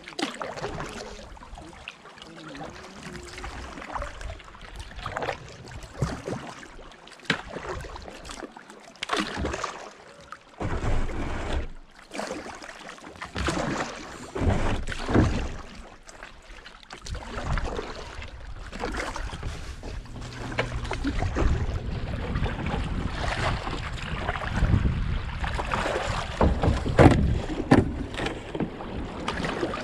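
Water splashing and rushing around a kayak moving down a small riffled creek, with uneven splashes from paddle strokes. Wind buffets the microphone in low gusts, more in the second half.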